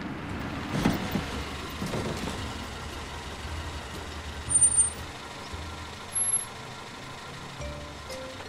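Small car driving in and pulling up in a driveway: steady engine hum with tyre noise, and two short high squeaks a couple of seconds apart around the middle.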